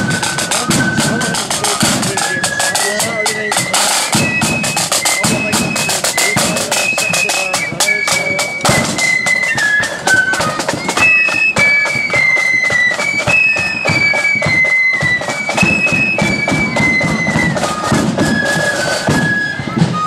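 Marching flute band playing a tune in unison, the flutes carrying a high stepping melody over fast snare drumming and the beat of a bass drum.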